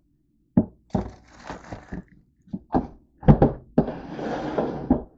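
Handling noise from a camera being moved about: a string of thumps and knocks, the loudest about three seconds in, with two stretches of rustling between them.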